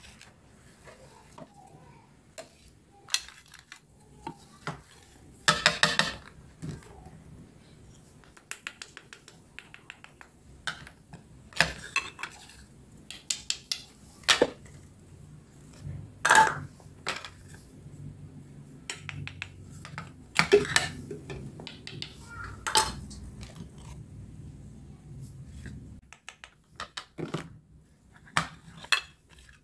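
Toy kitchen pieces and play food handled and set down: many separate hard clacks and knocks, some in quick clusters. Near the end a toy knife cuts a play pomegranate apart.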